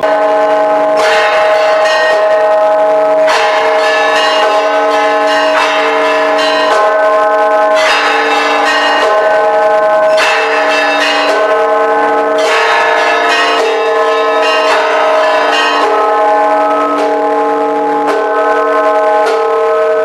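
Church bells of the Church of the Holy Sepulchre ringing in a peal: several bells struck in quick, irregular succession, their tones overlapping and ringing on.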